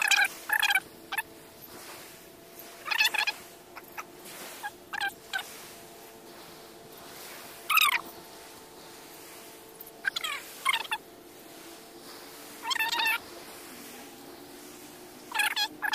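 Birds calling: short warbling calls that rise and fall in pitch, repeated every few seconds, over a faint steady hum.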